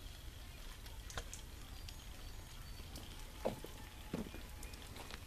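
Footsteps of a person walking outdoors, two soft steps a little past halfway, over scattered light ticks and clicks.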